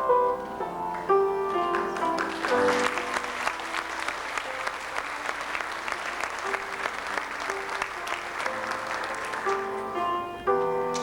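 Audience applauding over soft background piano music; the clapping builds about two seconds in and dies away near the end, leaving the piano.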